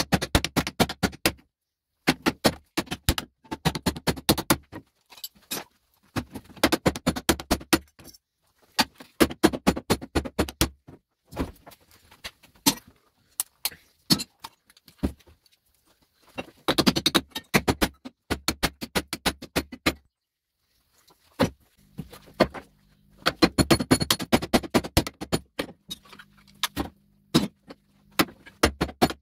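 Rapid, sped-up metallic clatter of hammer blows breaking cast-aluminium pump housings apart on a bench vise. The clatter comes in dense bursts of knocks, broken by short silent gaps.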